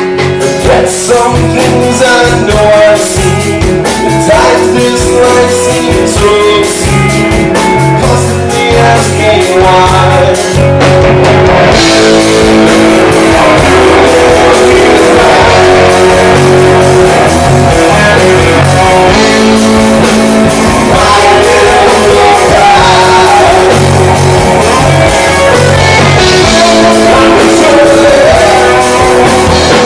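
Live rock band playing a song with a male singer and guitars; about twelve seconds in the sound becomes fuller and denser as more of the band comes in.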